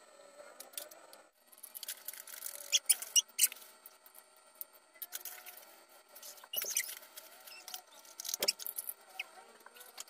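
Thin plastic bags crinkling and rustling as they are handled, in quick irregular crackles that are loudest about three seconds in, with a couple of dull knocks later on.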